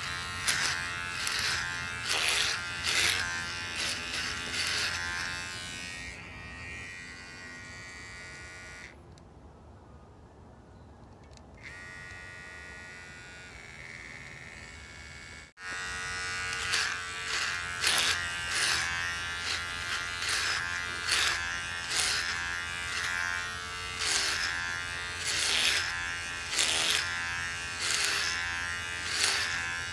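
Electric hair clippers buzzing steadily while cutting short hair, with a rasp each time the blade passes through the hair, about two strokes a second. For several seconds in the middle the clippers buzz more quietly without cutting. The sound drops out for an instant about fifteen seconds in, and the cutting strokes then resume.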